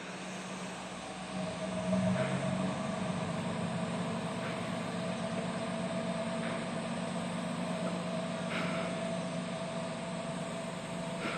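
Engine of a KiHa 120 diesel railcar running with a steady hum, growing a little louder in the first couple of seconds.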